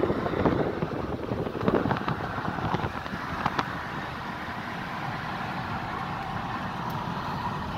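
Steady road noise of a car driving, heard from inside the cabin: tyre and engine hum.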